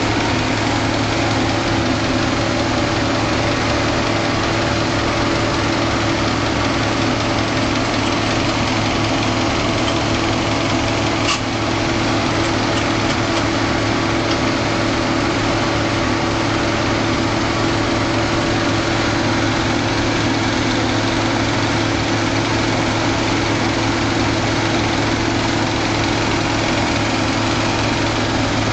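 Diesel farm-machinery engine idling steadily, with a single sharp click about eleven seconds in.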